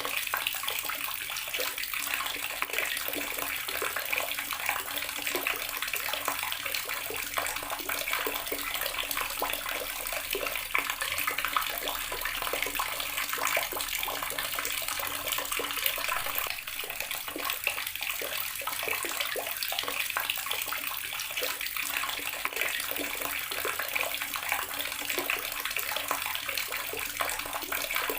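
Water running steadily from a garden tap, splashing continuously with a bright, even hiss.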